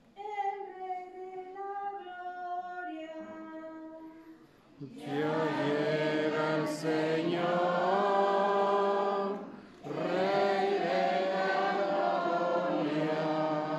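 Responsorial psalm refrain sung in Spanish: a single voice sings a phrase, then from about five seconds in a group of voices sings together in two long phrases with a short break between.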